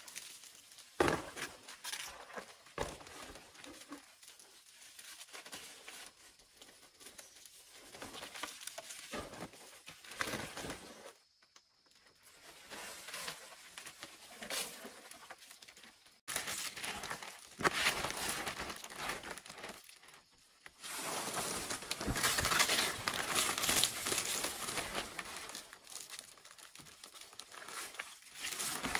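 Rustling and crinkling handling sounds with scattered light knocks and clicks, busiest and loudest in the last third.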